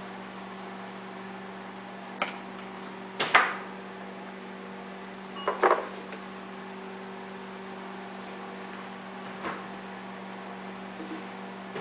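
Microwave oven running with a steady electrical hum, cooking an omelet on a 2-minute timer. A few sharp knocks come through the hum: one about two seconds in, a louder one a second later, a double knock around the middle, and a faint one near the end.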